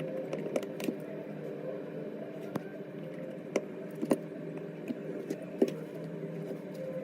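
Small repair tools clicking and tapping on phone parts: about a dozen sharp, irregular clicks over a steady low hum.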